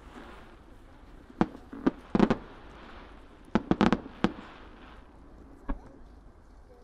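Starmine fireworks display: aerial shells bursting in sharp bangs, some single and some in quick clusters of several, about every second, with a last fainter bang near the end.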